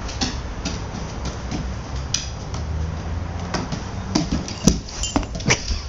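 A three-legged greyhound's claws clicking and tapping on a wooden floor as he turns in a circle. The clicks are scattered at first and come faster and louder in the last two seconds.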